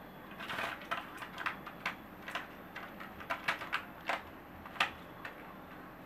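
Irregular, quick clicking and tapping from young cockatiels in a wire cage, about fifteen sharp clicks in six seconds with the most in the middle stretch.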